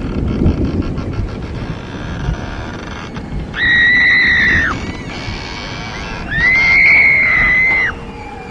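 Two long, shrill shrieks over a noisy, rumbling background. The first lasts about a second, and the second starts a little after the middle and lasts about a second and a half. Each holds one high pitch, sliding up at the start and dropping off at the end.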